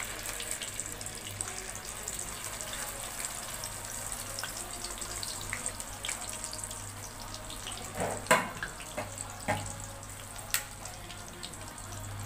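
Beaten egg with tomato, green chilli and coriander frying in hot oil in a metal pan: a steady crackling sizzle. A few sharp clicks stand out between about eight and eleven seconds in, the spatula against the pan.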